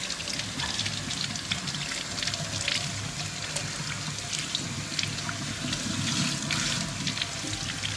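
Kitchen faucet running into a stainless steel sink as a gutted redfish skin is rinsed under the stream, water splashing and spattering off the fish and into the basin.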